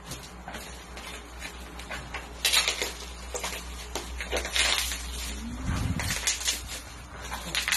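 Plastic parcel mailer and bubble wrap being torn open and crinkled by hand: irregular rustling and crackling bursts, loudest about two and a half seconds in and again near the middle.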